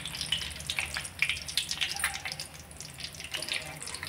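Cashews frying in hot oil, crackling and spattering irregularly. The nuts were still wet from washing, and that water is what makes the oil spit.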